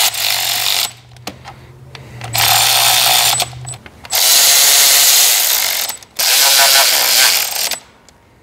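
Handheld power tool zipping valve cover bolts down on an M156 V8. It runs in short spurts of one to two seconds, four in all, with brief pauses as it moves from bolt to bolt.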